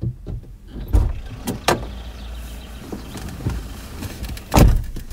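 A person getting into a car, heard from inside the cabin: door latch and handling clicks and knocks with rustling as he sits down, then a heavy thump about four and a half seconds in as the car door is pulled shut.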